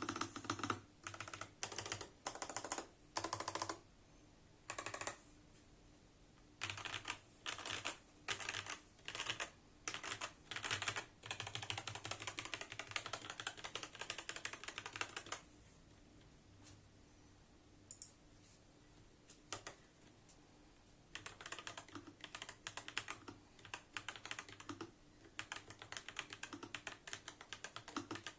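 Mechanical keyboard with Coco Cream V2 linear switches and typewriter-profile keycaps being typed on: short bursts of keystrokes at first, then a run of fast continuous typing, a pause of several seconds with only a couple of single key presses, and steady typing again to the end.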